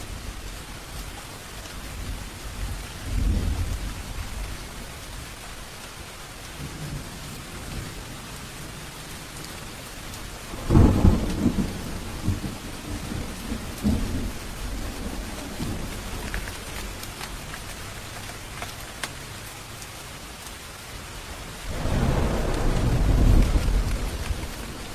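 Steady rainfall with thunder. Thunder rumbles low at intervals, with a loud sharp clap about eleven seconds in that rolls on for several seconds and another long rumble near the end.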